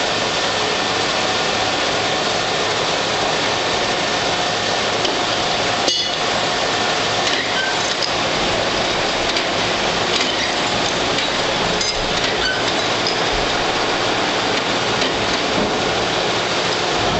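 Large wood lathe cutting: a steady rough hiss, with scattered clicks and clinks and one sharper click about six seconds in.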